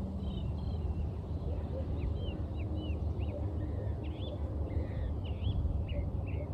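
Songbirds chirping, many short quick calls one after another, over a steady low background rumble.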